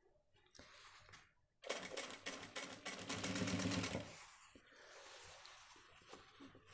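Industrial sewing machine running a short burst of stitches, about two seconds long, starting a second and a half in and then stopping. Cloth rustles softly as the fabric is handled before and after.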